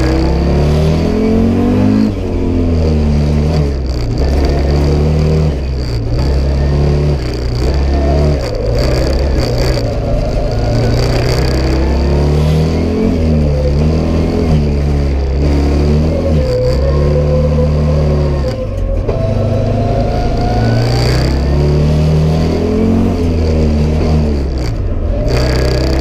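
Audi Sport Quattro S1's turbocharged five-cylinder engine, heard from inside the cabin, driven hard, its note climbing and dropping again and again through gear changes.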